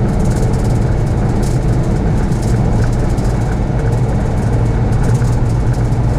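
Mercedes Sprinter diesel van at highway speed, heard from inside the cab: a steady low engine drone mixed with road and wind noise.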